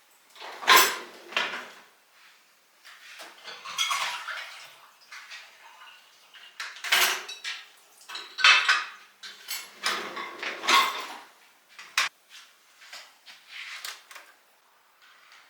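Dishes and cutlery clinking and clattering as they are handled, in a string of short knocks and bursts with brief pauses between them.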